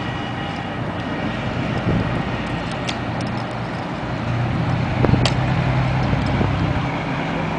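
A steady low engine hum, with a few sharp clicks about three and five seconds in.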